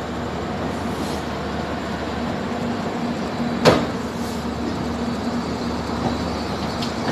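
Passenger train coaches rolling past on the track: a steady rumble with a low hum. A single sharp clank about halfway through is the loudest moment, with a few fainter clicks around it.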